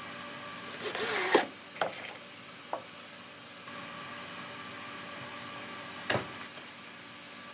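Cordless drill driving a screw into plywood in one short burst about a second in, followed by a few light knocks and a sharp knock about six seconds in.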